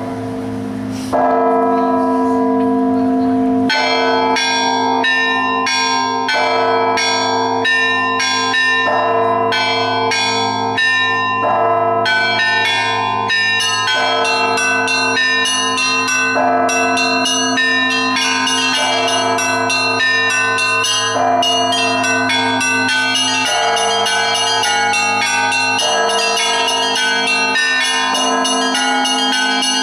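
Russian Orthodox church bells rung by hand. Heavy bells strike and hum, and about four seconds in the smaller, higher bells join in a quick, steady rhythmic chiming over them.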